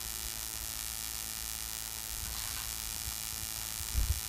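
Steady electrical mains hum and hiss from the microphone and sound system, with a soft low thump near the end.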